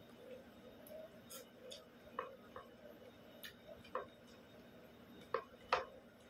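Eating by hand from a ceramic plate: quiet chewing with a few sharp clicks and smacks of fingers and mouth. The two loudest clicks come near the end.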